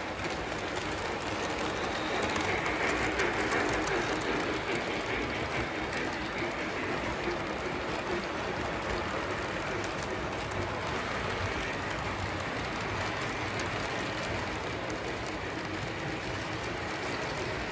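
Lionel O-gauge model freight train rolling past on three-rail track: a steady rolling clatter of metal wheels on the rails, a little louder about two to five seconds in.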